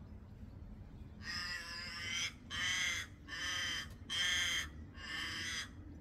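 A crow cawing: five drawn-out calls in a row, the first the longest.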